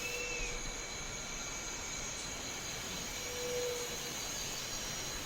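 Steady outdoor ambience: an even hiss with faint, thin, high steady tones like insects, and a few brief faint hums, one about three and a half seconds in.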